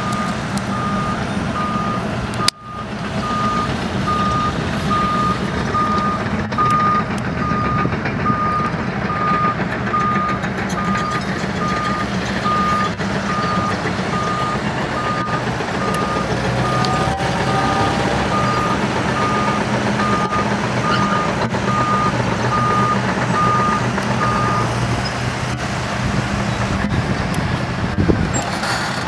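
A construction machine's reversing alarm beeps at a steady pace on one pitch over the continuous drone of heavy diesel machinery, and stops a few seconds before the end. The sound cuts out for a moment early on.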